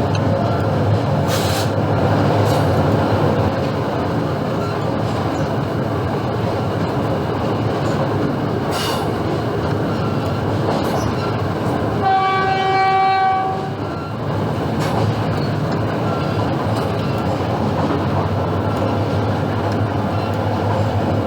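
A diesel-hauled train running on the rails, heard from the first car behind an EMD GT18B locomotive with an 8-cylinder 645 engine: a steady rumble of wheels and engine with a few sharp clacks. Past the middle the locomotive's horn sounds one blast of about a second and a half.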